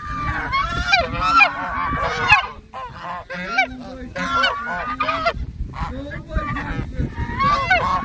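A flock of white domestic geese honking over and over, several birds calling at once with hardly a pause. The honking is agitated, with one goose lowering its outstretched neck toward the camera.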